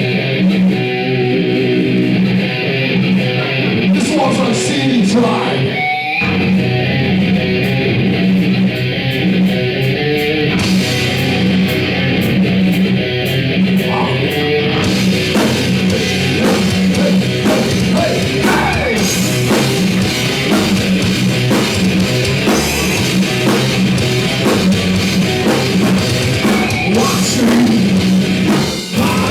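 Live metal band playing loud, with electric guitars and a drum kit, and a brief break about six seconds in.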